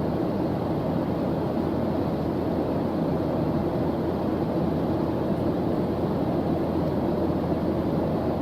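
Steady white-noise background track: an even, unchanging rushing hiss, deeper than bright hiss.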